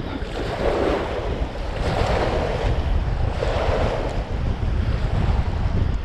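Strong wind rumbling on the microphone, with waves washing and splashing in three surges about a second and a half apart.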